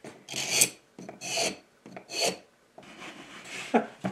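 Wood rasping and rubbing in short back-and-forth strokes, about one a second, with a longer, fainter rub near the end. It is a wooden lure blank working stiffly in a tight fit, the wood swollen with moisture.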